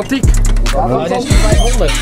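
Hip hop music: a deep bass drum beat with a voice rapping over it.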